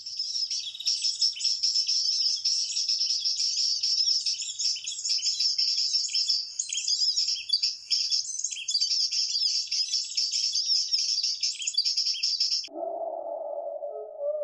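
Recorded perenjak lumut bird call played through a Bluetooth speaker as a trapping lure: a dense, rapid run of high chirps and twitters that starts abruptly and cuts off suddenly near the end. A lower-pitched warbling sound follows in the last second or two.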